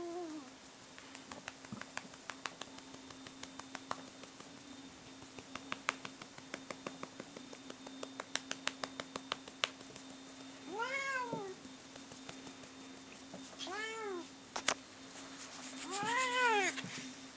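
A cat meowing: one call right at the start, then three drawn-out meows in the second half, each rising then falling in pitch. Before them comes a scattered run of light clicks.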